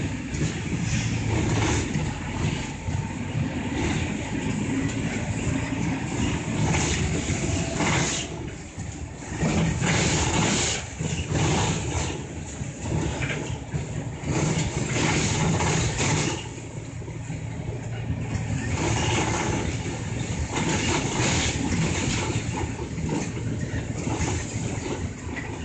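Route bus engine and road noise heard from inside the moving bus, the loudness rising and falling as the bus accelerates and eases off.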